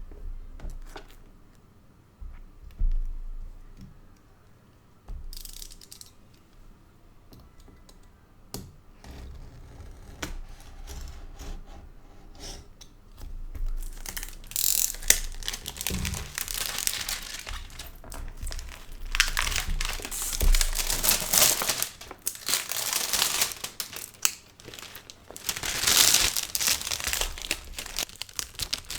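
Keyboard packaging being handled and opened: scattered clicks and taps at first, then from about halfway long stretches of crinkling and tearing wrapping.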